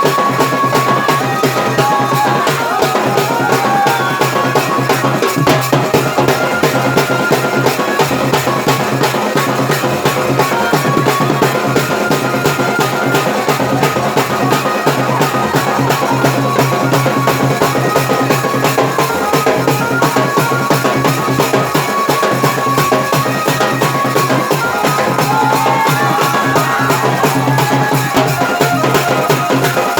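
Dance music with a steady, driving drum beat and other instruments playing over it without a break.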